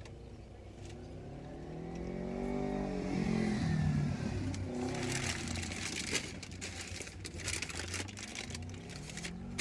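A passing car's engine swells and fades, its pitch rising and then falling, loudest about four seconds in. After it come crunchy chewing and mouth clicks from eating a crispy fried fish sandwich close to the microphone.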